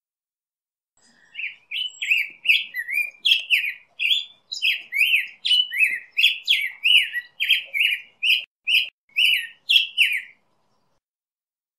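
Black-headed grosbeak singing a long, unbroken run of short whistled notes that glide up and down, about two a second. The song starts about a second in and stops near the end.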